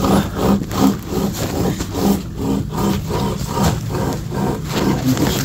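Rhythmic scraping, about three strokes a second, over a steady low rumble.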